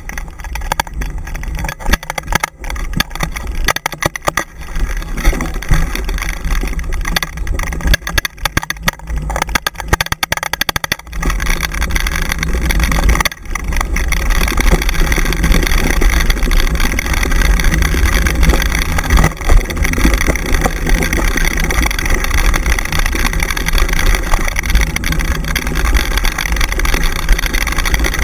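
Rushing wind on the microphone and the rumble and rattle of a dog-pulled dryland rig rolling over a dirt trail. Choppy with many small knocks at first, then from about eleven seconds in a steadier, louder rush as the rig runs faster.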